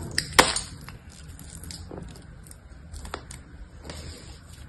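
Hands working a plastic tube extruder tool: one sharp click about half a second in, then scattered light clicks and scrapes.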